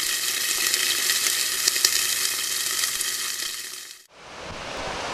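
Loud sizzling hiss with sharp crackles, like food frying in a hot pan, which cuts off about four seconds in. Waves breaking on a rocky shore then fade in.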